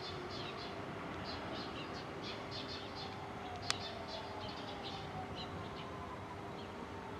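Small birds chirping in quick repeated bursts over a steady hum, while a Shin-Keisei 8000-series electric train pulls slowly out toward the track-side with a faint whine that rises in pitch. One sharp click about halfway through.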